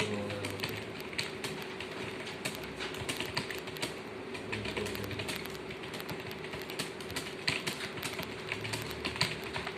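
Rapid, irregular clicking of keys typed at speed during a typing test, over a faint steady hum.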